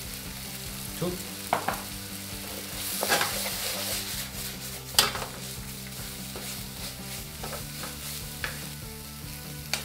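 A kimchi, pork and vegetable stir-fry sizzling in a nonstick frying pan while a wooden spatula stirs and scrapes it. There is a sharp knock about five seconds in.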